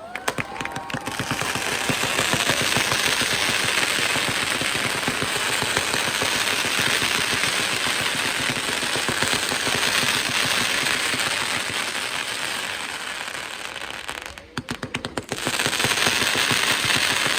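Fireworks going off in a dense, rapid barrage of bangs and crackling pops. It breaks off briefly near the end, then starts again.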